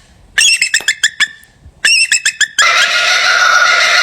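Bird squawking: two bursts of rapid, harsh calls, then from about two and a half seconds in a dense, continuous din of calls.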